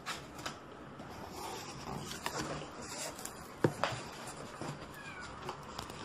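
Cardboard and bubble wrap rustling as a box of packed cookware is opened and handled, with two sharp clicks a little past the middle.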